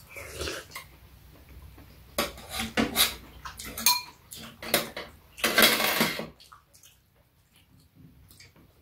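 Metal spoons and chopsticks clinking and scraping against ceramic soup and rice bowls during a meal. A cluster of sharp clinks comes a couple of seconds in, one ringing briefly, then a longer scraping noise, and it goes quieter in the last few seconds.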